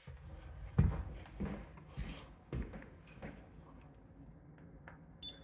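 Footsteps on a bare floor, about five steps at a walking pace, the first the heaviest. Near the end there is a short high beep, typical of a handheld laser distance measurer taking a reading.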